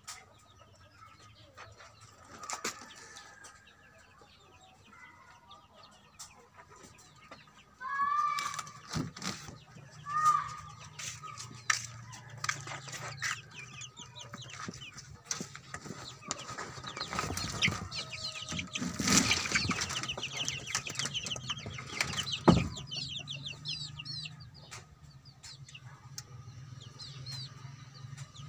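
Young chickens in a brooder peeping and chirping, many short high rising peeps, with a few louder calls about eight and ten seconds in. Rustling and bumps thicken from about seventeen seconds, with a single sharp knock about twenty-two seconds in.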